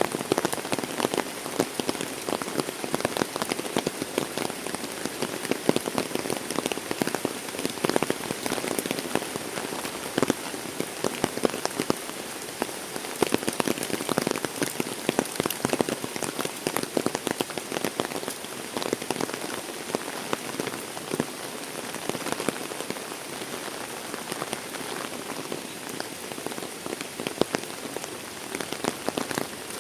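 Heavy rain falling steadily, a dense patter of countless drops striking a surface.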